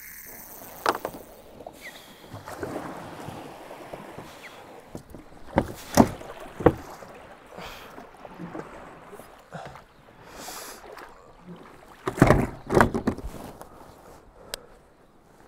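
Kayak being paddled through shallow water: paddle strokes splashing and knocking, in a group of sharp strokes about six seconds in and another around twelve seconds, over a steady wash of water.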